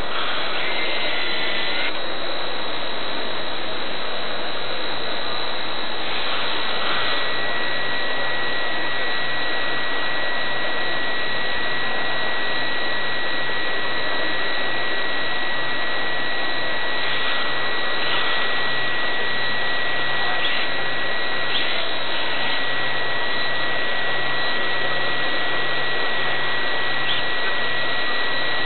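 Electric motors and propellers of a radio-controlled advertising blimp, heard from the camera on board: a steady whirring hiss with a thin, high, steady whine over it.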